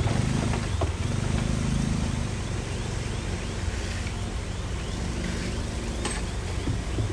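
Heavy construction machine's diesel engine running steadily, a little louder for the first couple of seconds, with a few sharp knocks early on and faint high chirps repeating about three times a second.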